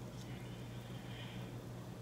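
Quiet room tone with a steady low hum, and faint small clicks and rustles of fingers picking crab meat out of a cracked crab-leg shell.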